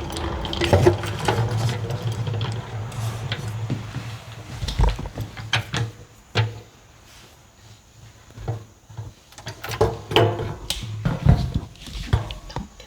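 Honey extractor spinning frames, its gears and drum rattling over a steady low hum that dies away about halfway through; after that, scattered knocks and clunks.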